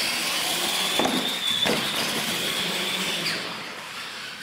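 Electric R/C monster trucks accelerating off the start line, their motors and gears giving a steady high whine over a rushing noise.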